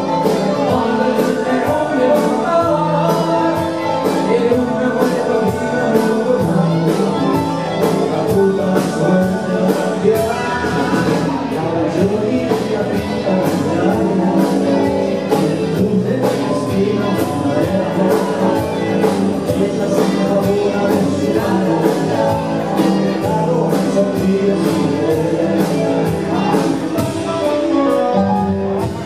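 Live rock band playing a song: drums keep a steady beat under guitars, with a voice singing.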